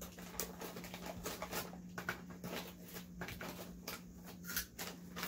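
Plastic snack bag crinkling as hands reach into it, and crunchy cheese-ring snacks being chewed: a run of small, irregular clicks and rustles.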